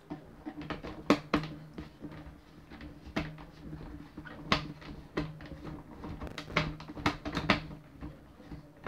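Irregular sharp clicks and knocks of hard plastic as hands work at the parts of a Nerf toy blaster to take them off, about eight clear ones, over a low steady hum.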